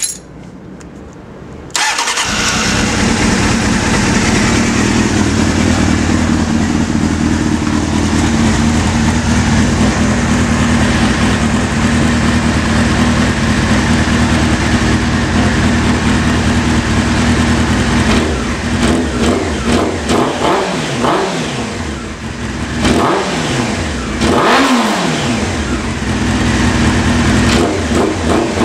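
Honda CBR600 F2's inline-four engine through a Jardine RT1 aftermarket exhaust, starting up about two seconds in and idling steadily. Later it is revved in several quick throttle blips, then drops back to idle, with garage echo on the sound.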